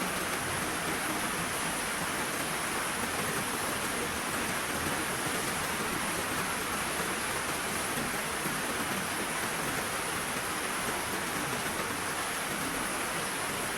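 Heavy rain falling steadily, an even hiss of downpour with no breaks.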